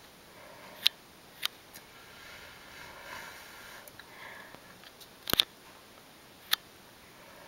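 A few sharp clicks over faint room noise: single clicks about a second and a second and a half in, a louder quick double click a little after five seconds, and one more near the end.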